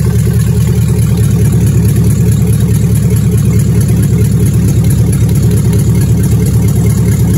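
Chevrolet Caprice engine idling steadily with a low, even rumble.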